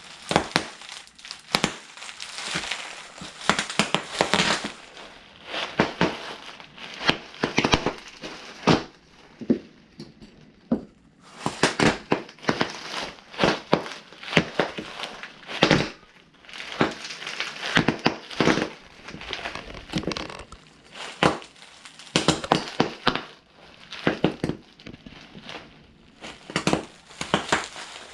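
Bubble wrap being stomped flat under cowboy boots: bursts of sharp pops in quick clusters amid crinkling plastic, with a couple of short lulls.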